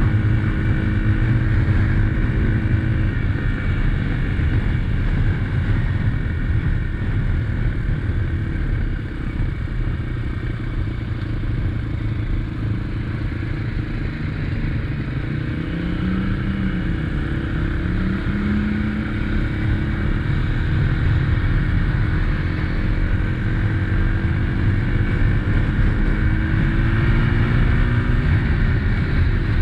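2021 SSR XF250's single-cylinder 250cc engine running while riding, its pitch dipping and rising a few times with the throttle.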